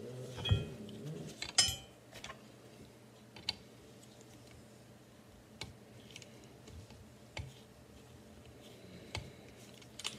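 Small metallic clicks and clinks of a screwdriver working the screw under the front sight of a Henry lever-action .22 rifle. Two louder clinks with a short ring come in the first two seconds, then single clicks about every two seconds as the screw is backed out.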